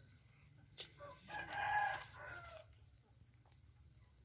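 A rooster crows once, faintly, starting about a second and a half in.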